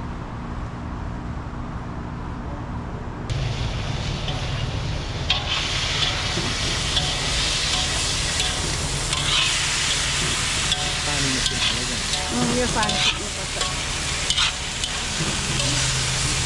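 Food sizzling in hot oil in a pot, stirred, with scattered clicks from the spoon against the pot. The sizzle gets louder about three seconds in.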